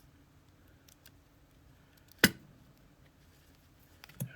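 Small metal padlock parts and tools being handled: faint ticks, one sharp metallic click a little over two seconds in, and a couple more clicks near the end.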